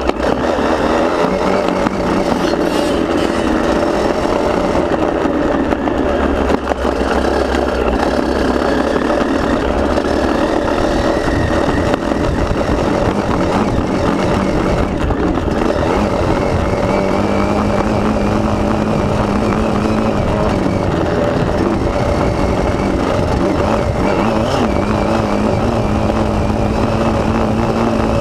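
KTM motocross bike engine running hard, with a strong rush of wind across the onboard camera's microphone.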